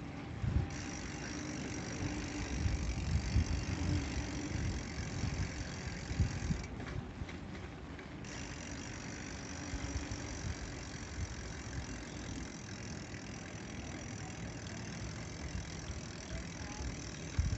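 Bicycle rolling over paving stones: a steady tyre rumble and rattle, with gusty wind on the microphone.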